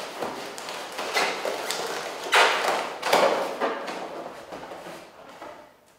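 Inflated latex balloons of a white balloon topiary rubbing and bumping against each other as it is handled, with a balloon weight worked into its base. There are several rubbing sounds, the loudest about two and a half seconds in, then they fade out near the end.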